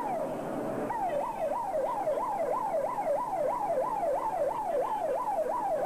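Vehicle siren sounding a rapid yelp of falling sweeps, about three a second, taking up steadily about a second in, over the noise of a large crowd.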